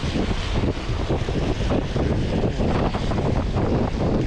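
Wind buffeting a handlebar-mounted GoPro's microphone on a moving bicycle: a loud, steady, fluttering rumble with a hiss above it, typical of riding on a wet road.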